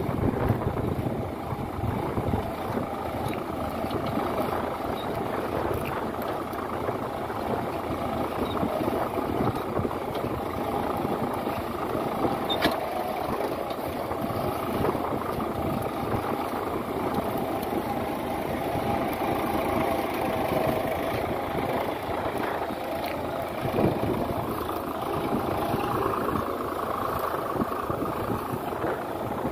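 Swaraj 855 FE tractor's three-cylinder diesel engine running steadily under load as it pulls a mounted plough through dry soil.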